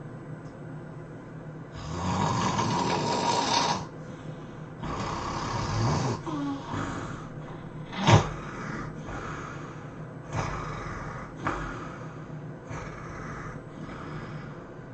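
A person snoring in deep sleep: two long, loud snores about two and five seconds in, a sharp snort about eight seconds in, then shorter, quieter snores.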